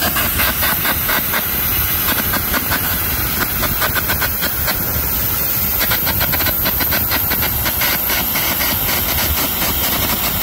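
Air carbon arc gouging on structural steel: a loud steady hiss of compressed air with the arc crackling fast and irregularly as the carbon electrode gouges out a column connection for removal.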